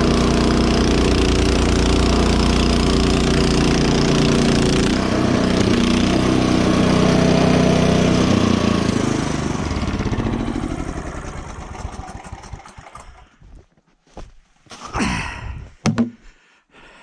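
Honda snowblower's four-stroke engine running steadily under load, then shut off about eight seconds in and winding down to a stop over a few seconds. A few short scuffs and thumps near the end.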